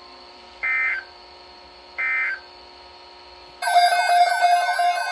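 Emergency Alert System end-of-message data bursts: two short, shrill digital screeches a little over a second apart, closing out the severe thunderstorm warning. About three and a half seconds in, a loud electronic sound of many tones with sweeping pitches cuts in abruptly.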